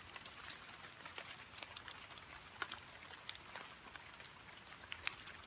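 Rain falling in the forest at night: a steady hiss with irregular sharp ticks of drops striking close by.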